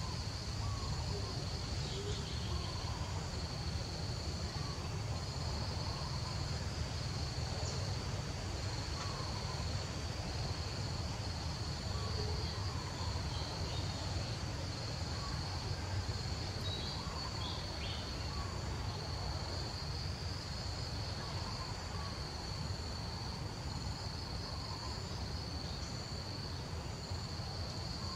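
Insects trilling steadily on one high, unbroken, faintly pulsing note, over a steady low rumble of background noise.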